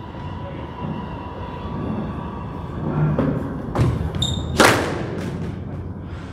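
Squash ball struck with a racket: one sharp, ringing crack about three-quarters of the way in, with a softer knock of the ball just before it.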